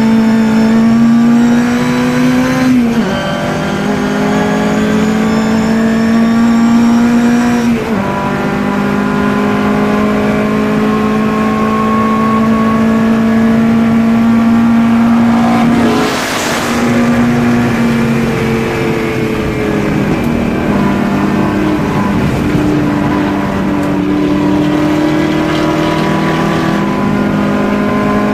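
Mark 1 Ford Cortina race car's four-cylinder engine running hard at high revs, heard from inside the cabin. Its pitch climbs slowly and drops sharply at gear changes about 3 and 8 seconds in. A short burst of noise with a shift in pitch comes about 16 seconds in.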